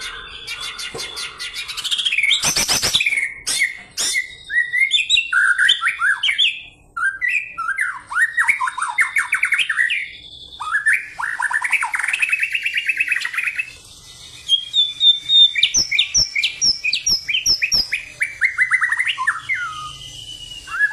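A caged white-rumped shama (murai batu) singing a fast, varied song of quick sweeping notes and trills, given in the sharp, insistent, energetic 'fighting' style. A short harsh burst comes about two to three seconds in.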